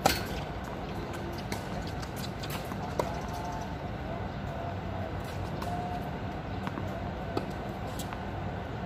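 Tennis ball struck with rackets and bouncing on a hard court during a rally: a sharp pock just as it begins, the loudest, then several fainter pocks spread through, over a steady outdoor hum like distant city traffic.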